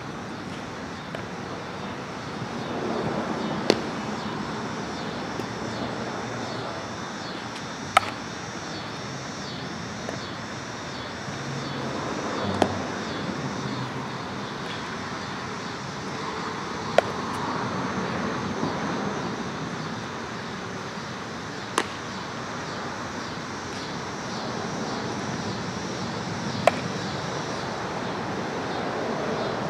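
Sharp cracks of a bat hitting ground balls during infield practice, one about every four to five seconds, some with a short ring, over steady outdoor background noise.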